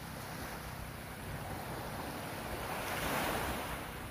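Small waves breaking and washing up a pebbly beach, the surf swelling to its loudest about three seconds in and then easing. Wind rumbles on the microphone underneath.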